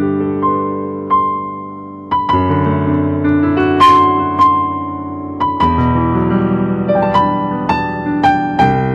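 Piano playing slow, sustained chords under a simple high melody, each chord struck and left to ring and fade before the next.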